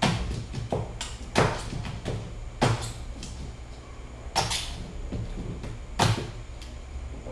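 Ice pick chipping a block of ice in a stainless steel sink: about six sharp strikes at uneven intervals, each ringing briefly.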